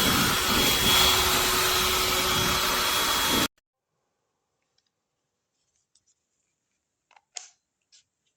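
1400 W brushless-motor ionic hair dryer running, a steady rush of air with a thin high whine, which cuts off suddenly about three and a half seconds in. A few faint clicks follow near the end.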